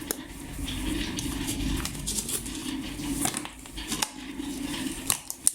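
Steady hum of a firework star-rolling machine, with many small clicks and rattles of hard firework stars being handled and sorted, the sharpest clicks near the end.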